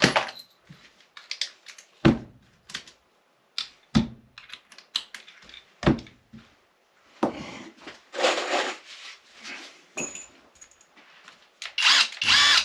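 Handling noise of cordless power tools: sharp plastic clicks and knocks roughly every two seconds as the tools are picked up and set down, then some rustling and scraping in the second half. No motor is run.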